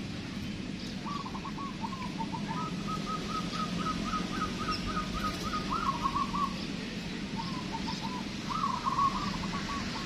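Caged zebra doves (perkutut) singing: a short coo phrase, then a long run of quick staccato notes, then louder coos about six and nine seconds in, over a steady low hum.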